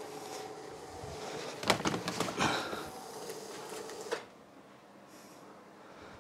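Electric roller motor of a 150-inch Screen Technics projector screen humming steadily as it lowers the screen. It cuts off abruptly about four seconds in as the screen reaches its lower limit. A short cluster of knocks and rattles comes about two seconds in.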